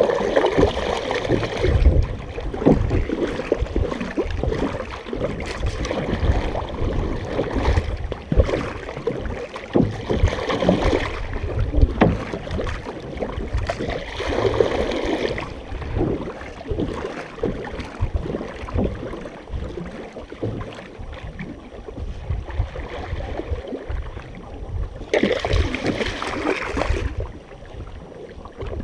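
Lake water sloshing and splashing against a canoe's hull close to the waterline, with paddle strokes in the water and surges of louder rushing water now and then, the strongest near the end.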